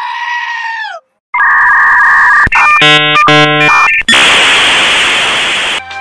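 Edited-in comedy sound effects: a high, held bleating scream that trails off about a second in. Loud electronic beeping tones follow in quick steps, then a loud burst of hissing noise that cuts off near the end.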